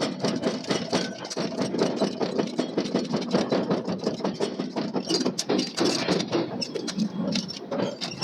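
Forging machinery running with a rapid, irregular clatter of metal knocks, several a second, over a steady machine hum.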